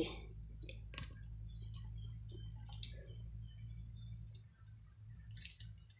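Faint rustling and scattered small clicks of fingers sprinkling spice from a small steel bowl over a basket of crisp fried carrot chips, with a sharper click about a second in, over a steady low hum.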